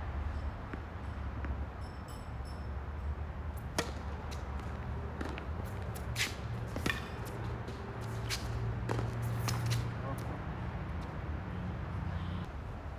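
Tennis rally: racket strikes on the ball and ball bounces on the hard court, a string of sharp pops at uneven gaps from about four seconds in to about ten seconds in, over a steady low hum.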